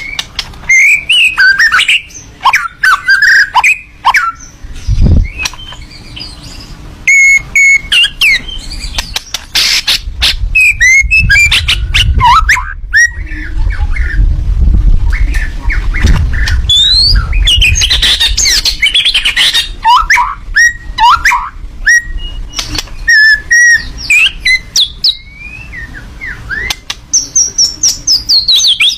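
A miwah songbird singing a loud, fast, varied song of sharp chirps, squawks, clicks and quick whistled glides, with brief pauses between runs. A low rumble lies underneath for several seconds in the middle.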